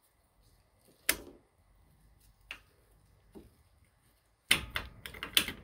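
Sharp metal clicks of pliers and a retaining clip being worked onto the end of a lawnmower transmission shaft: single clicks about one second apart, then a quick cluster of clicks near the end.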